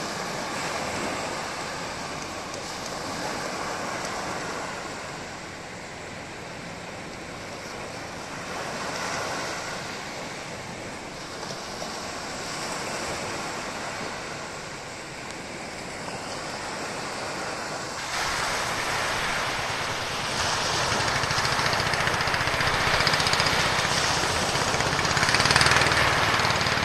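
Small waves breaking and washing up on a sandy shore, the rush of surf swelling and ebbing, with wind buffeting the microphone. About two-thirds of the way through, the noise abruptly becomes louder and fuller.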